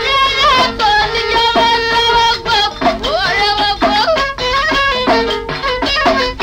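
Old Moroccan aita folk recording: a violin melody with sliding notes over steady hand-drum beats.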